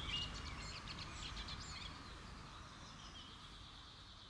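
Outdoor ambience of songbirds chirping and whistling over a low rumble, the chirps busiest in the first two seconds and the whole sound slowly fading out.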